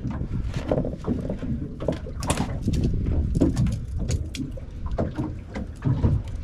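Wind and water noise on a small open fishing boat: a steady low rumble with scattered knocks and clicks, the loudest about two and a half seconds in.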